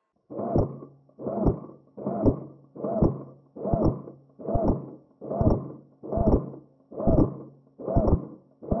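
Evenly paced muffled thuds, a little under one a second, like a player's footsteps on the forest floor.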